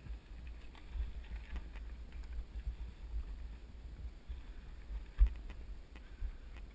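Low rumble of wind and ride vibration on a GoPro's microphone as a mountain bike rolls over a gravel road, with scattered knocks from bumps and one sharp thump about five seconds in.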